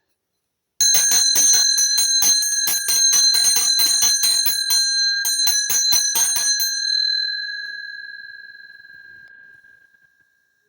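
A handbell shaken, its clapper striking about four times a second with a high ring, starting about a second in; after some six seconds the shaking stops and the ring fades away over about three seconds.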